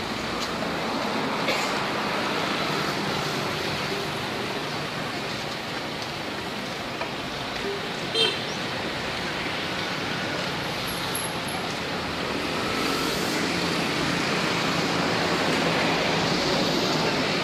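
Steady road traffic noise, vehicles running past, growing a little louder in the last few seconds, with one brief sharp high sound about eight seconds in.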